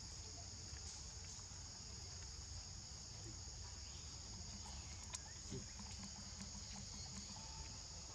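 Steady high-pitched drone of an insect chorus, with a low rumble underneath and a few faint ticks.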